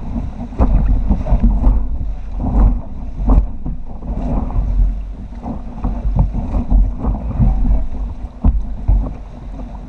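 River water rushing and splashing against an inflatable raft as paddles dig in, with irregular splashes and wind buffeting the microphone in a heavy low rumble.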